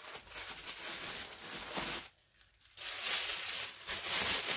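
Crinkling and rustling of white packing material being pulled out of a shipping box, in two spells with a short pause about two seconds in.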